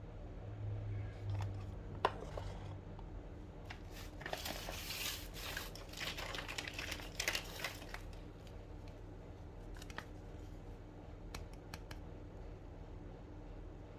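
Toy packaging crinkling and rustling as it is handled and opened, densest for a few seconds in the middle, with a sharp click near the start and a few light clicks and taps near the end.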